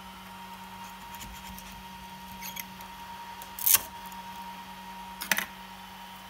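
A hand-held scraper working a freshly 3D-printed part loose from a glass printer bed: light ticks and scrapes, then two sharp scrapes as the print is prised off, the first and louder a little past halfway and the second near the end. A steady electrical hum runs underneath.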